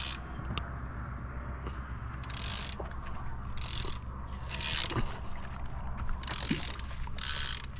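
A conventional fishing reel's clicker ratcheting in short, irregular bursts as line is let out and pulled off the spool by a live baitfish.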